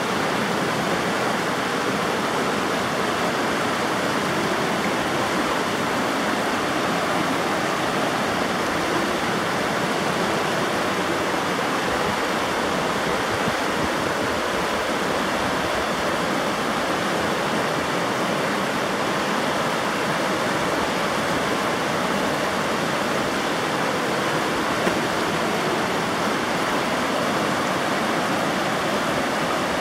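River water flowing and rushing over rocks, a steady, even rushing sound.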